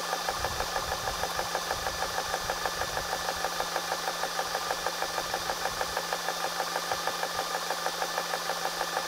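GX CS1-I portable PCP air compressor running under load while filling an air rifle, its pump pulsing rapidly and evenly over the steady hum of its cooling fans; a little bit loud.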